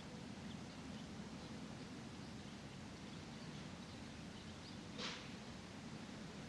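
Faint park ambience: a steady hiss over a low, steady rumble of distant traffic, with a few faint, short small-bird chirps. About five seconds in comes a brief, sharp burst of noise, the loudest sound.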